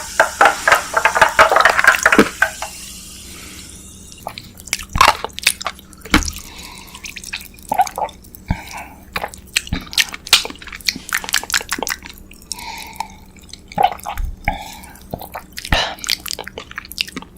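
Close-miked eating sounds: a dense crackling hiss for the first couple of seconds, then scattered wet mouth clicks, small bites and chewing of sweets.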